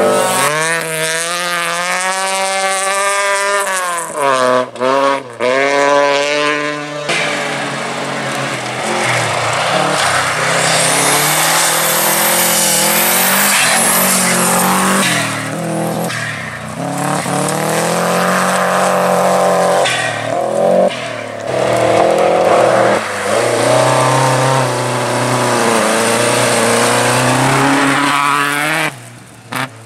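Rally car engine revving hard through the gears, its pitch climbing and falling back at each gear change. There are brief lifts off the throttle about five seconds in and again near the end.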